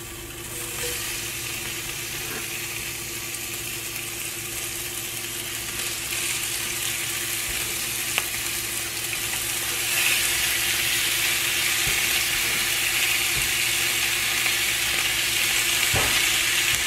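Sliced bacon sizzling in a hot cast-iron skillet, the sizzle growing louder as more pieces go into the pan and stepping up about ten seconds in. A couple of light taps can be heard.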